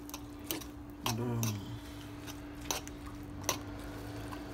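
A utensil stirring a wet mix of beaten eggs, shrimp and chopped peppers in a metal frying pan, with a few sharp clicks where it knocks against the pan.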